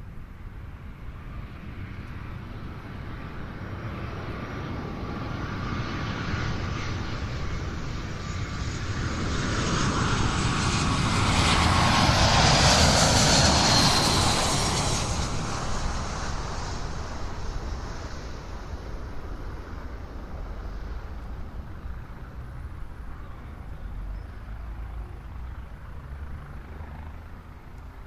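An airliner flying over: its engine noise builds for about ten seconds, peaks about halfway through with a high whine that drops in pitch as it passes, then slowly fades away.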